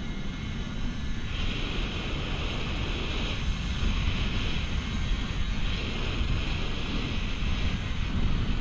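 Wind buffeting the microphone on a fast zipline ride, with a steady low rumble. A higher rushing hiss, from the trolley running along the steel cable, comes in about a second in and swells and fades several times.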